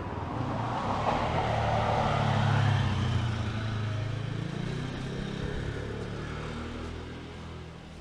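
A motor vehicle passing by, its engine sound swelling to a peak about two and a half seconds in, then slowly fading.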